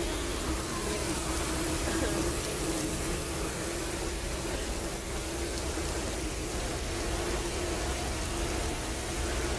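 Steady engine drone and road noise inside the cab of a semi-truck on the move, with a constant hum under an even hiss.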